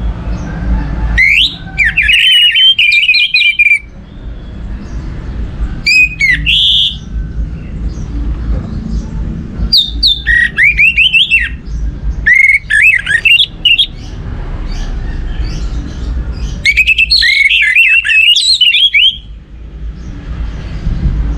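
Orange-headed thrush singing: about five bursts of fast, varied whistled and chattering notes, separated by pauses of a second or two, over a steady low rumble.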